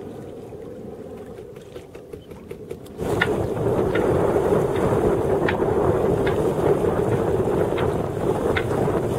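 Wind buffeting the microphone and water rushing past the hull of a sailboat under way in choppy water. About three seconds in, the sound turns abruptly much louder, with brief sharp sounds about once a second.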